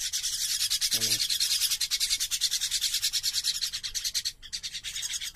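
Common myna chicks begging with harsh, rapid rasping calls, a fast continuous scratchy chatter that breaks off briefly near the end. A short human voice sounds about a second in.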